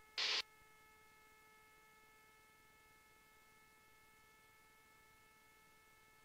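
A short burst of radio static right after the start, then a faint steady electrical hum of several pitches on the cockpit radio and intercom audio feed; no engine is heard.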